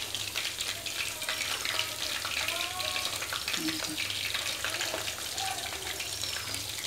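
Chicken wings deep-frying in a wok of hot oil: a steady, crackling sizzle.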